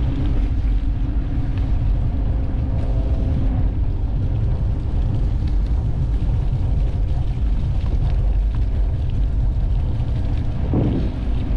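Steady low rumble of wind and road noise on a moving bicycle's action camera during a ride, with a faint hum of traffic.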